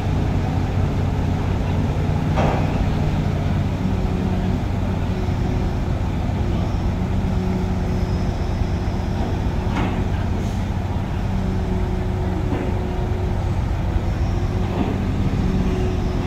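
Steady drone of heavy diesel engines from a truck-mounted crane and an idling semi-tractor unit as a container is hoisted off the trailer, the engine note stepping up about four seconds in. A few brief clicks sound over it.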